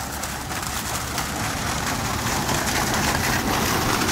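Rustling, crackling noise of walking through dry brush and leaves, growing slowly louder.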